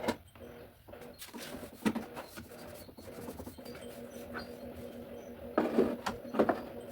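Scattered knocks, taps and rustles of things being handled, over a faint steady hum, with a few louder knocks near the end.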